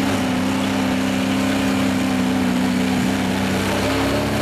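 GAZ-66 truck engine running hard at steady revs as the truck climbs a steep bank out of a pit.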